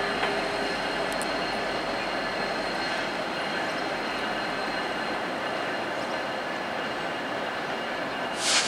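VIA Rail passenger train rolling slowly over the rails, a steady wheel noise with faint high, steady tones. Near the end there is one short, sharp hiss.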